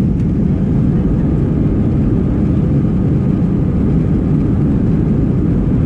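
Airbus A319 jet engines at takeoff power heard from inside the cabin over the wing: a loud, steady low rumble as the airliner begins its takeoff roll.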